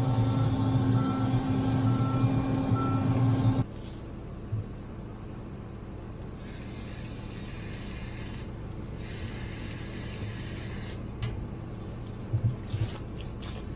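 A farm machine's engine running loudly with a steady hum and a repeated electronic beeping. About three and a half seconds in it cuts to a quieter steady hum, with a high electronic beep tone sounding on and off and a few clicks near the end.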